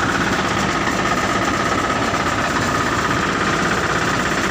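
Fire truck's engine running steadily, a loud even machine drone that does not change.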